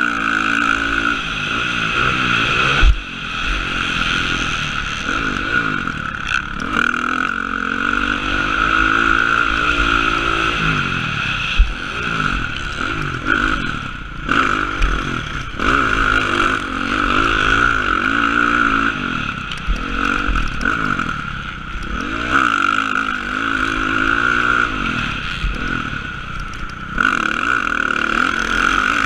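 Dirt bike engine heard from the rider's helmet cam on a motocross track. It revs up and drops back over and over as the rider works the throttle and shifts through the track, and there are sharp thumps about three seconds in and again near the middle.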